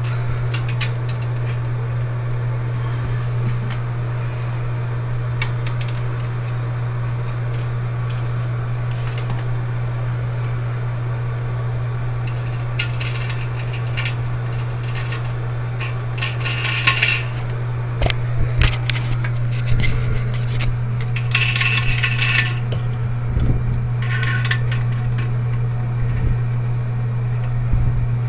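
Small metal parts clinking and scraping in short bursts as tank-to-bowl bolts, washers and nuts are fitted and tightened under a toilet tank. Several dull knocks come in the second half, over a steady low hum.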